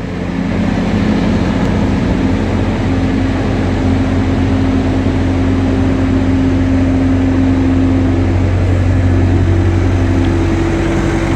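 Bobcat skid steer loader's diesel engine running steadily, with a steady hum and a tone that steps up in pitch about nine seconds in.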